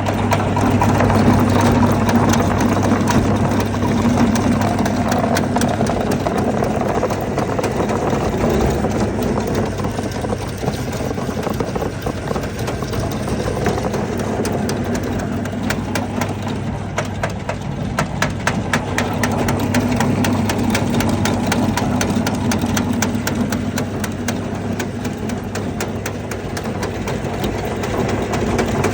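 Olive-slitting machine for pickling olives running with a steady motor hum, with a fast run of clicking through the middle stretch.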